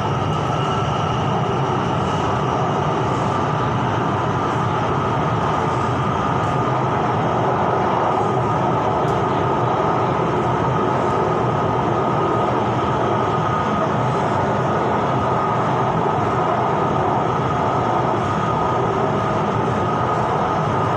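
BTS Skytrain electric metro train running steadily between stations, heard from inside the car: an even rumble and rush of running noise with a steady whine over it.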